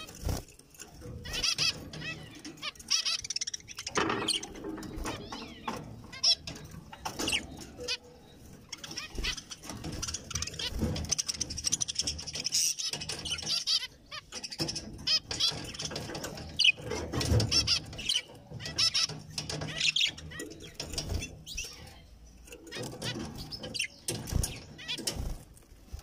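Zebra finches calling in a cage: a busy stream of short, high call notes and chattering, interspersed with wing flutters and light clicks and knocks as the birds move about the perches and bars.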